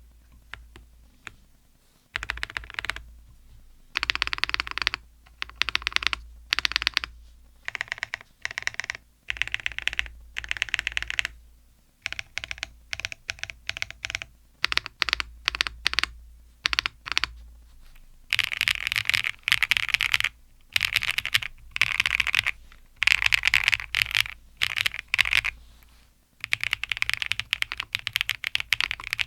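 Typing on a KBDfans Athena 1800 custom mechanical keyboard, pre-built with factory-tuned stabilizers and PBTfans keycaps. Keys clack in quick runs of about a second or two with short pauses between them, starting about two seconds in.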